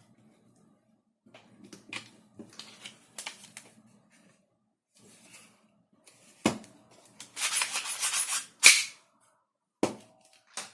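Hard plastic parts being handled and fitted together: scattered clicks and light knocks, a sharp snap about six and a half seconds in, then a rasping scrape lasting about a second and a half that ends in a loud snap, with two more clicks near the end.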